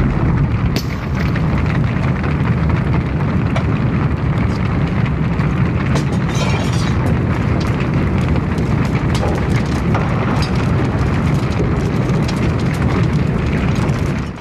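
Roar of a blazing house fire with a constant crackle of sharp pops, cutting off abruptly at the end.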